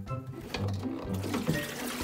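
Background music over water splashing and sloshing as a hand stirs the water in a plastic basin in a sink.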